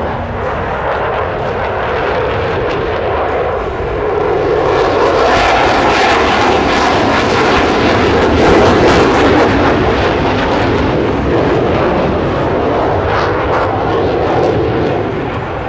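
Blue Angels F/A-18 Super Hornet jets flying past. The jet engine noise swells from about four seconds in, is loudest in the middle, and eases near the end, its pitch sliding as the jets go by.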